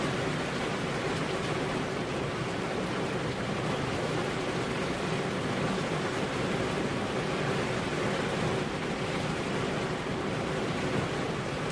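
Steady rain falling, an even, unbroken hiss with no thunderclap.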